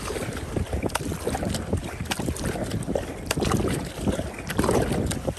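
Kayak paddle blades splashing into the water stroke after stroke as a sea kayak is driven along at speed, with water washing past the hull. Wind rumbles on the microphone throughout.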